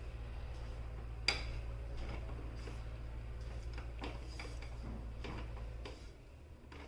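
A spoon stirring dry spice powders in a pan, with light scrapes and scattered taps and one sharper clink a little over a second in. A steady low hum runs underneath and stops near the end.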